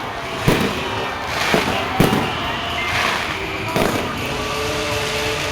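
Fireworks going off: five sharp bangs, irregularly spaced about a second apart, over a continuous background of crackling and crowd noise.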